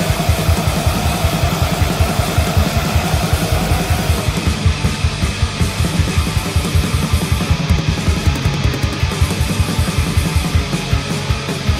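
Black metal music: distorted electric guitars over fast, even drumming with a rapid kick-drum pulse of several hits a second.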